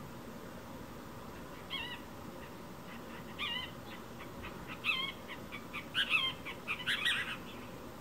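Cassin's kingbird calling. Single wavy, burry notes come about two, three and a half and five seconds in, then a quick run of excited chattering calls near the end.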